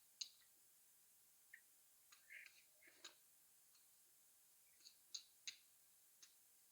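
Faint, scattered mouth clicks and smacks of someone eating spicy noodles, about ten short sounds spread irregularly through otherwise near-silent room tone.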